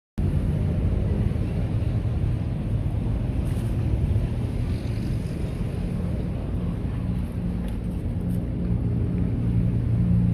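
Wind rumbling on the microphone over sea and waves, with a low engine drone that settles into a steady hum about halfway through.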